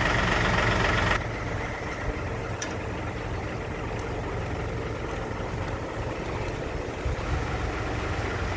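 Concrete mixer truck's diesel engine running. It is louder with a high whine for about the first second, then drops abruptly to a lower, steady idling rumble.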